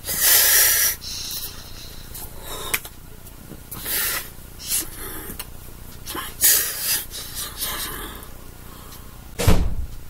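Rustling and rubbing of hands and sweatshirt sleeves as a person signs close to a webcam microphone, in several short swells, with a dull thump near the end.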